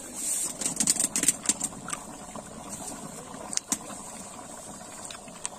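Large pot boiling hard over a wood fire: a quick run of bubbling pops and crackles in the first two seconds, then a few scattered pops over a steady hiss.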